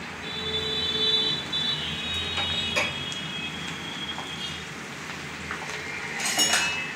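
Diced ridge gourd tipped into hot oil in a frying pan, sizzling as it lands, then stirred with a spatula scraping against the pan. A thin, high steady tone sounds over the first few seconds.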